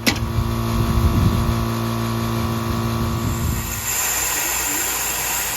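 Craftsman LT2500 lawn tractor engine running at a steady speed, starting suddenly and holding an even hum; past the middle the hum thins out, leaving a hiss.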